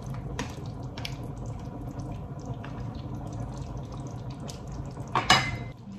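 A large pot of curry soup bubbling as it simmers, with a wooden spoon stirring and knocking against the steel pot. Near the end there is one louder, sharper clatter.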